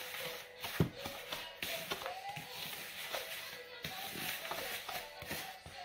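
Wooden spoon stirring crushed cocoa biscuits and melted butter in a plastic bowl, with scraping and several short knocks against the bowl. Faint background music underneath.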